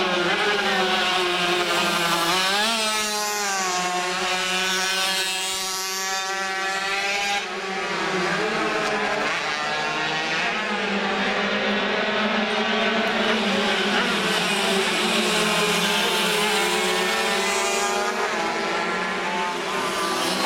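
Classic racing motorcycles passing at speed one after another, several engines at once, their pitch rising and falling as they rev and go by.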